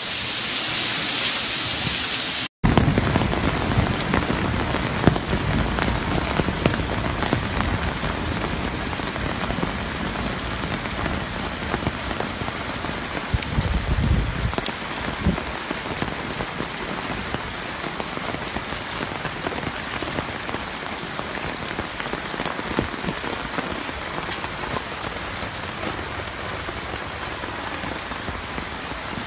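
Heavy rain pouring down steadily, full of small patters, with an abrupt cut to a different recording of the rain about two and a half seconds in.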